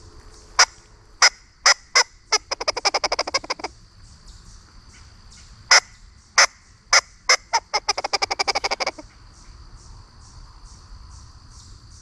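Bayou Legacy Harvester squirrel call blown by mouth, imitating squirrel barking to get a reaction from a squirrel: a few spaced sharp barks quicken into a fast run of barks, and the same series comes again about five seconds later.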